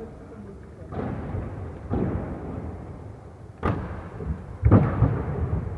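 Aggressive inline skates hitting the metal-edged curb box, with hard clacks about one, two, three and a half, and four and a half seconds in, the last the loudest. Between the hits the skate wheels rumble on the hall floor, and each hit echoes in the large hall.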